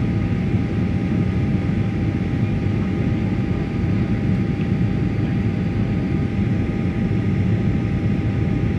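Steady jet airliner cabin noise on the approach to landing: a low, even roar of engines and rushing air, with faint steady whine tones above it.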